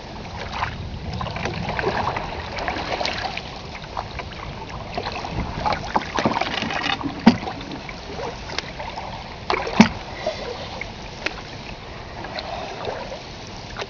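Open canoe under way on a fast-flowing river: paddle strokes splash and water laps against the hull. A few sharp knocks and clicks break through, the loudest about ten seconds in.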